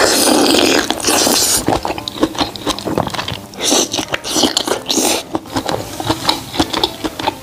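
Close-miked eating of sauce-covered lobster meat: a loud, wet bite lasting over a second, then open-mouthed chewing with many quick wet clicks and smacks.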